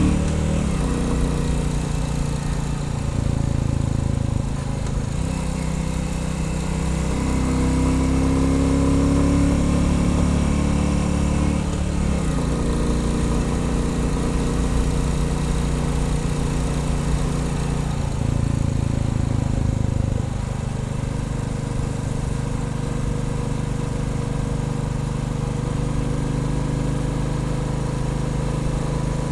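Royal Enfield Bullet 350's single-cylinder engine running on the road, its pitch rising and falling with throttle. The revs drop noticeably about twelve seconds in and again about twenty seconds in, then hold steadier and lower.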